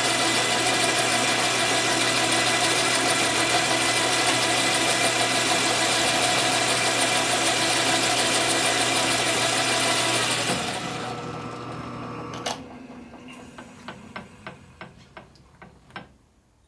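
Metal lathe running steadily while a cut is fed by hand. About ten seconds in it is switched off and winds down, followed by a run of sharp clicks that come closer and closer together.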